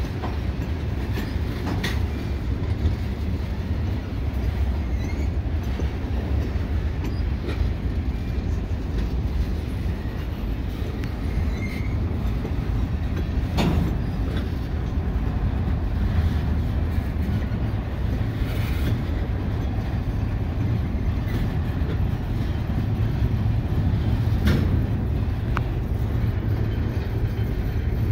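Freight train cars rolling past: a steady low rumble of steel wheels on the rails, with a few sharp clicks from the wheels passing over the rail.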